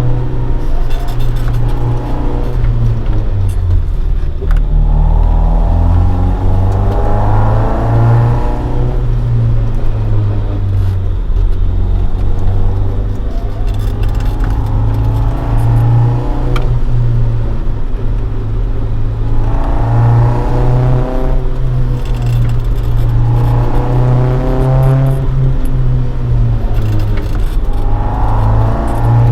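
Toyota AE86 Sprinter Trueno running on the road. Its swapped AE111 20-valve four-cylinder breathes through four individual throttle bodies and a Fujitsubo Legalis R exhaust. Under the steady low drone, the revs climb and drop back about five times as the car pulls through the gears and lifts off.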